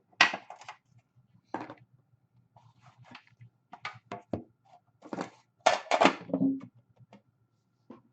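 Trading cards and their packaging being handled at a table: a string of short rustles, clicks and taps, busiest about five to six and a half seconds in.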